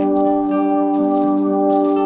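Background music: soft ambient music with a steady chord of held tones.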